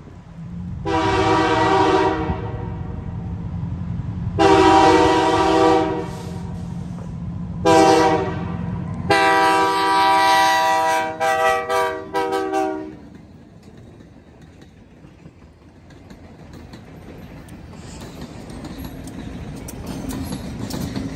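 Diesel locomotive horn sounding the grade-crossing signal: two long blasts, a short one, and a final long blast, over the low rumble of the engine. After the horn stops, the locomotive's running grows steadily louder as it comes up to the crossing.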